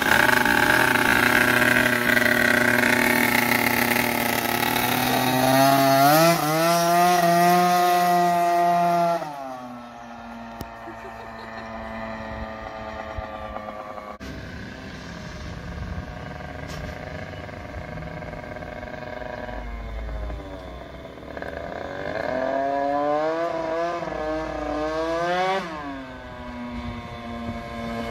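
Drag scooter's big-bore two-stroke engine with a Polini PWK 32mm carburettor and a straight Roost expansion exhaust, revved hard as it pulls away, the pitch climbing and holding high, then dropping suddenly and going quieter as the scooter rides off. Near the end it rises again in pitch as the scooter comes back, then settles to a steady lower note.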